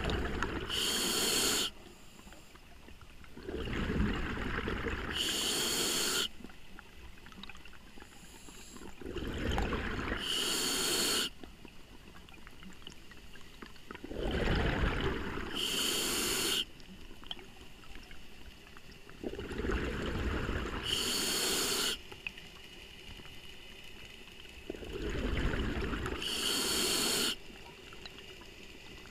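Scuba diver breathing through a regulator underwater: a short hiss with each inhale and a low rush of exhaled bubbles, a breath about every five seconds, six in all.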